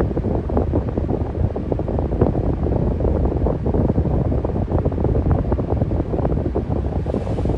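Electric fan running steadily: a low, even rush of air with a rapid flutter in it.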